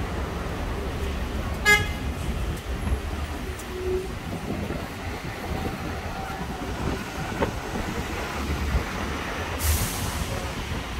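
Steady rumble of city street traffic with buses and cars passing, a short vehicle horn toot about two seconds in, and a brief hiss near the end.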